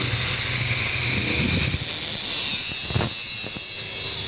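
A steady machine drone, a low hum under a hiss, with a few short knocks, the clearest about three seconds in.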